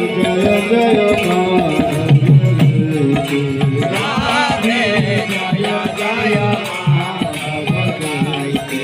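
Devotional group singing, a chanted kirtan with many voices, over a hand drum and rattling percussion.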